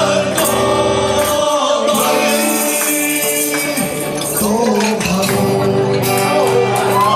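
Live performance of men singing a Chinese song into microphones, backed by acoustic guitar and band accompaniment, with held and sliding sung notes over steady high percussion ticks.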